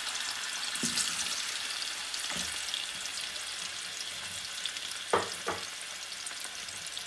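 Raw potato cubes sizzling in hot oil in a frying pan just after being tipped in, a steady hiss that eases slightly. Two brief noises about five seconds in.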